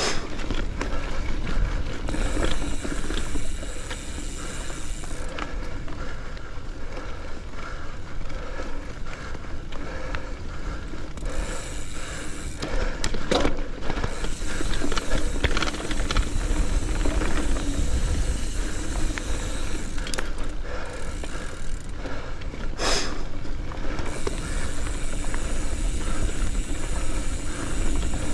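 Mountain bike being ridden over dirt singletrack: tyres rolling on the trail, with chain and frame rattling over bumps under a deep rumble. A few sharp knocks come through, the loudest about 23 seconds in.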